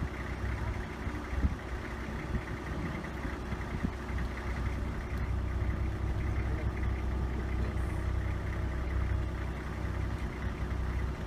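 A vehicle engine idling steadily, a low even hum, with a short knock about a second and a half in.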